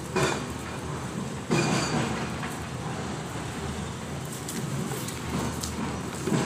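Hands rustling and scraping loose soil and dry fibrous roots as a plant is pressed down into a plastic pot, over a steady background noise, with two louder bursts of handling at the start and about a second and a half in.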